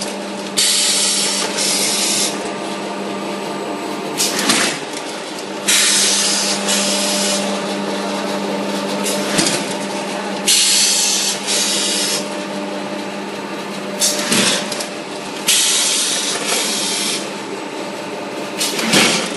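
Automatic clay-cutting machine on a pug mill running with a steady motor hum. About every five seconds there is a sharp clack, then about a second later a high hiss lasting a second or two, repeating with each cutting cycle.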